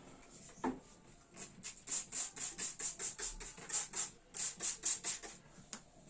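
Can of polyurethane spray foam being worked to fill the organizer: a quick, even run of short hissy pulses, about four a second, starting about a second and a half in and stopping just past five seconds.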